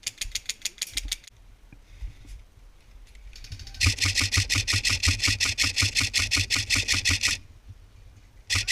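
Airsoft gun firing full-auto bursts of rapid, evenly spaced clicks, about nine a second: a short burst at the start, a longer one of about three and a half seconds from about four seconds in, and another starting near the end.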